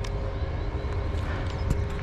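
Footsteps of a player on the move over a steady low rumble of movement against the microphone, with a couple of sharp clicks, one right at the start and one near the end.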